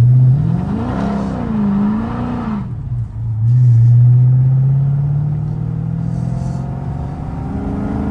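Dodge Charger Daytona 392's 6.4-litre HEMI V8 and exhaust, heard from inside the cabin with the windows down. The engine note rises and falls twice in the first couple of seconds, dips briefly, then holds a strong low drone that climbs slowly in pitch as the car pulls away. The owner finds it quieter than it should be and thinks it is either an exhaust leak or a transmission problem.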